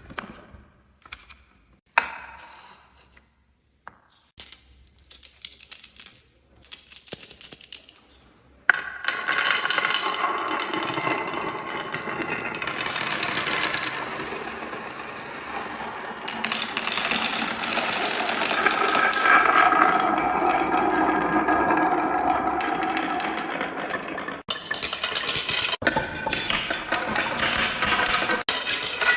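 Marbles clicking and knocking on a wooden marble run, a few scattered hits at first, then a dense, continuous clatter of many pieces rolling and bumping down the track from about nine seconds in.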